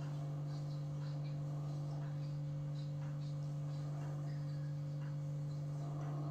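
A steady electrical hum: one strong low tone with fainter higher tones above it, unchanging throughout.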